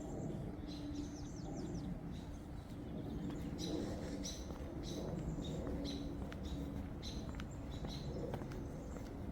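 Small birds chirping: short high chirps repeated in quick clusters, over a faint low hum with scattered light clicks.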